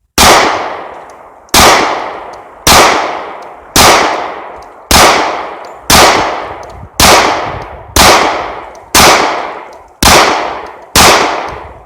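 Taurus PT-111 G2 9mm pistol firing 124-grain plated rounds, eleven shots at a steady pace of about one a second, each with a ringing tail.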